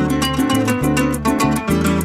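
Instrumental intro of a llanero pasaje played on bandola, cuatro, maracas and bass: quick plucked notes over held bass notes and regular maraca strokes, with no singing.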